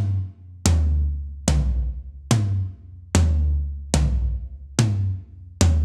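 Gretsch Renown toms (13", 16" and 18") struck one at a time, eight strokes about 0.8 s apart, moving between the toms. They are tuned low, with clear double-ply Emperor batter heads damped by gels and tape on the resonant heads, so each hit gives a punchy attack and a short, low boom.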